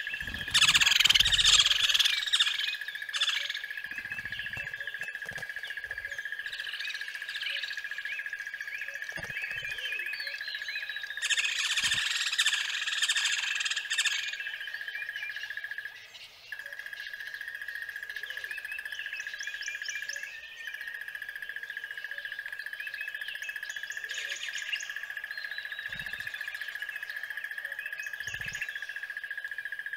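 Songbirds chirping and singing in flurries, busiest at the start and again about halfway through, over a continuous high-pitched steady tone that drops out briefly after the middle.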